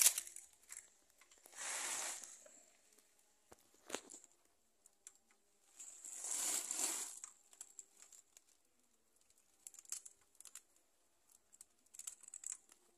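Paper packing and sacking rustling and tearing as it is pulled off a log. Two longer rustles about 2 s and 6.5 s in, with scattered small clicks and knocks between them.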